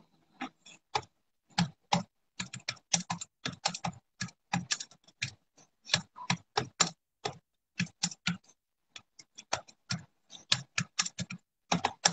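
Typing on a computer keyboard: irregular key clicks, several a second, with a few short pauses.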